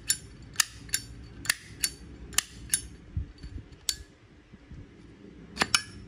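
Zippo lighter's hinged metal lid being flicked open and snapped shut, a string of sharp metallic clicks. They come in quick pairs about a third of a second apart in the first three seconds, with a few more near the end.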